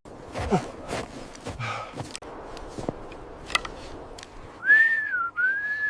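Two long whistled notes, each rising and then falling in pitch, near the end, preceded by a few soft knocks and rustles.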